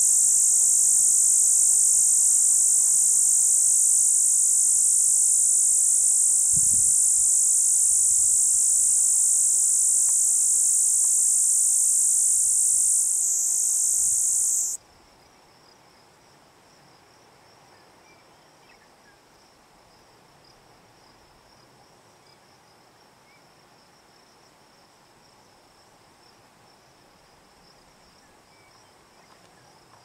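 Hadoa inaudita cicada singing a loud, steady, high-pitched buzz that wavers briefly, then stops abruptly about halfway through. After that only a faint, steady high buzz remains.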